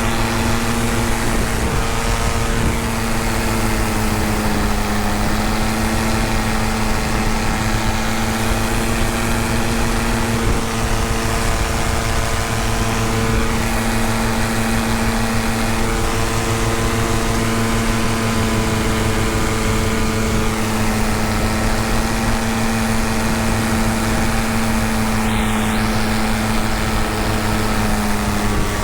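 Paramotor trike's engine and propeller running at a steady cruise in flight, a constant pitched drone with a low rumble beneath it.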